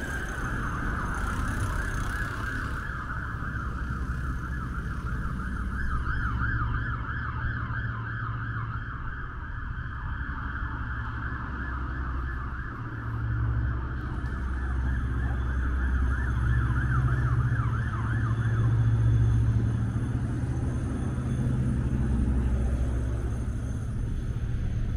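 Emergency vehicle siren passing through city traffic: a wail that turns into a fast warble after a few seconds and fades away about three-quarters of the way through. Underneath is the low rumble of road traffic, louder in the second half.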